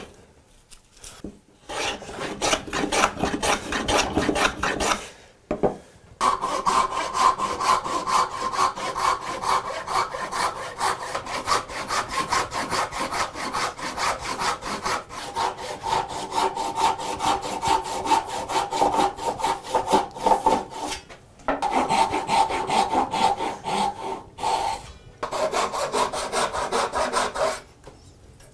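Fast back-and-forth scraping strokes of hand abrading, like filing or scrubbing a part of an antique foot-powered mortiser being restored, with a steady ringing tone under the strokes for long stretches. The strokes stop briefly a few times.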